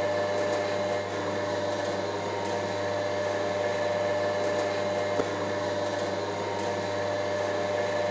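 A motor-driven machine running with a steady whirring hum. A faint click comes about five seconds in.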